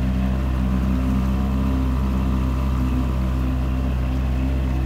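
Boat engine running at a steady speed, heard from on board: a low, even drone that does not change.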